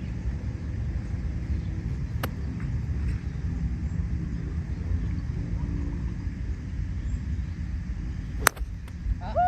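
Golf club striking the ball on a full swing: one sharp crack about eight and a half seconds in, over a steady low rumble.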